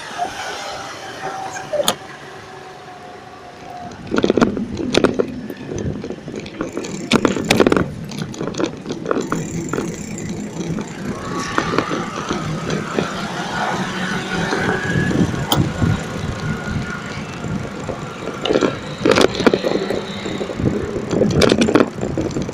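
Bicycle rolling over paving stones and a bike lane, rattling with sharp knocks at bumps, against city street traffic. A whining tone rises and falls around the middle.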